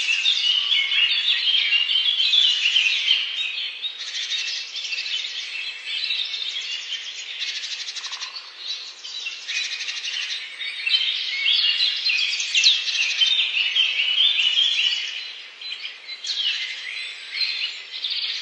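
Songbirds singing, overlapping chirps and rapid trills, with a short lull about fifteen seconds in.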